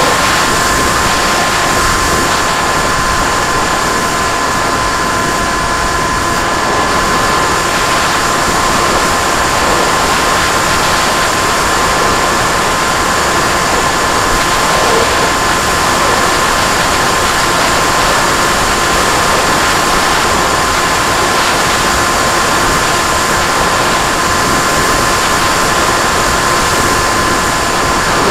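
Model aircraft motor and propeller heard through its onboard camera: a steady whine holding one pitch, with fainter higher tones, over an even rush of propeller and wind noise.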